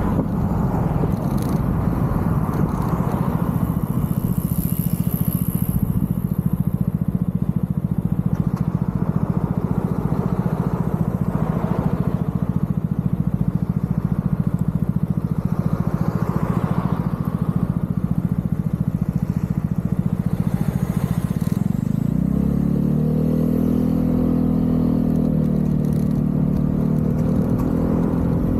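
Vespa GTV 300 scooter's single-cylinder engine running steadily while riding. About 22 seconds in, the engine note becomes a clearer, steady pitched hum.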